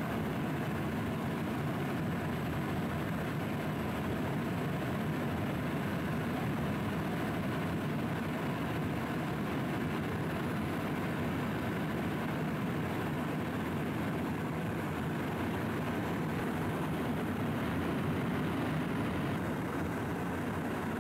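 Steady engine and airflow noise of an aircraft in flight, heard on board.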